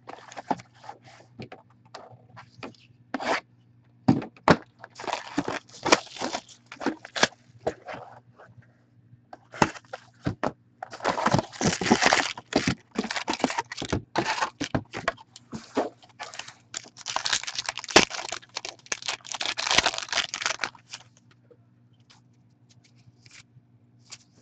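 Hands tearing open a cardboard hockey card box and its foil card packs: irregular crackling, tearing and scraping, heaviest in the middle stretch, dying down near the end.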